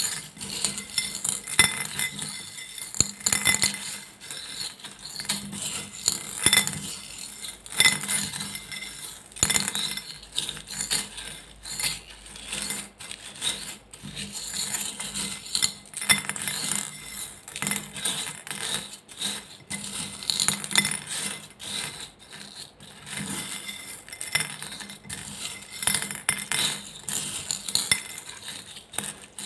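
Glossy slime being kneaded by hand into small beads in a glass bowl: a dense run of irregular clicks, crackles and clinks as the beads rattle against the glass and the slime is pressed.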